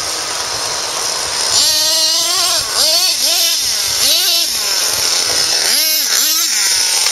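Radio-controlled monster truck's motor revving in repeated short bursts, its pitch rising and falling with each burst, over a steady hiss.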